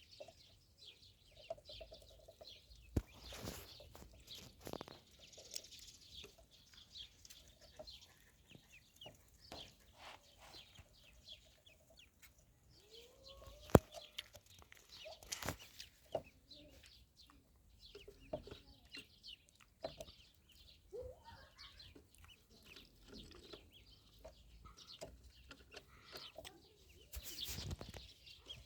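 Ducklings peeping and cheeping in many short high calls, with a few scattered knocks and one sharp click about 14 seconds in.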